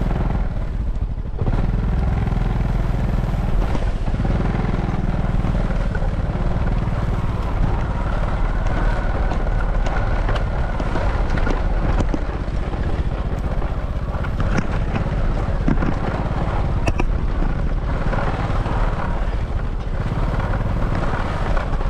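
Small motorbike engine running steadily while riding over a rough grassy track, with a few short knocks along the way.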